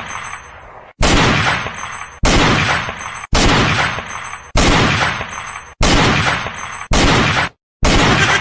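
A gunshot sound effect repeated about once a second, each blast loud and sudden, fading and then cut off abruptly before the next, with a faint high ringing after several of them.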